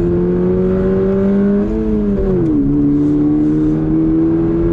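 Toyota GR86's 2.4-litre flat-four engine under acceleration, heard from inside the cabin. Its note rises slowly, drops once about two seconds in as the driver shifts up a gear on the manual gearbox, then climbs again.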